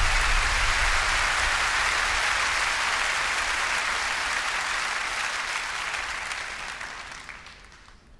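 Theatre audience applauding, the applause slowly fading and dying away near the end.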